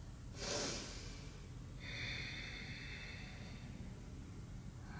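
A woman breathing audibly: a short, sharp breath about half a second in, then a longer, softer breath from about two seconds in.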